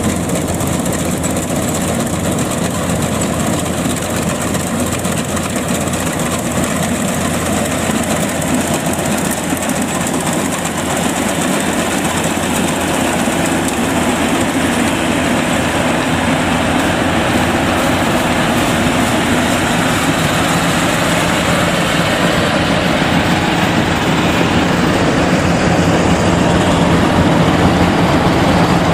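Yanmar YH85 rice combine harvester running steadily, its engine and reel and cutter bar working as it cuts lodged rice on tracks sunk in the mud.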